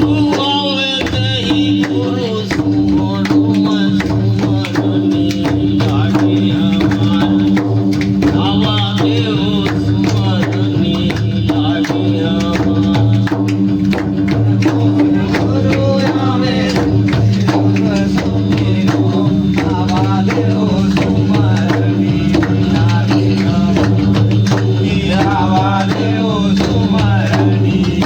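Devotional folk music: a steady low drone under a regular percussion beat, with a wavering melody line above.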